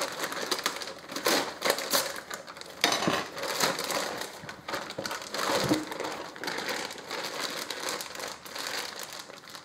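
Thin plastic bag crinkling and rustling in the hands as it is cut open with a knife and pulled away from the meat inside.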